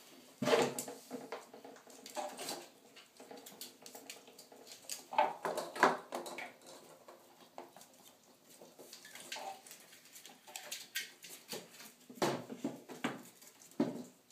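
Ferrets rummaging among plastic toys in a bathtub: irregular knocks and clatter of plastic balls and bowls against the bin and the tub, with a few louder knocks scattered through.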